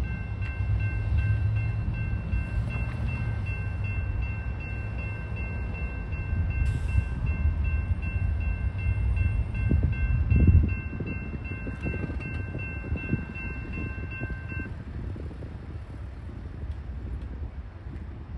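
Distant train horn holding a steady chord, cutting off about fifteen seconds in, over a low rumble that swells briefly about ten seconds in.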